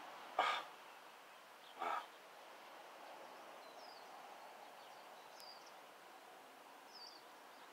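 Two short breaths by a person, about a second and a half apart, then a quiet stretch with a few faint high bird chirps.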